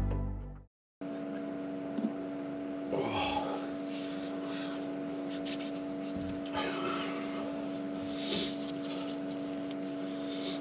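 Background music fades out. After a short silence a small electric fan runs with a steady hum inside the closed truck cap, while it keeps the damp down overnight. A few brief soft noises come and go over the hum.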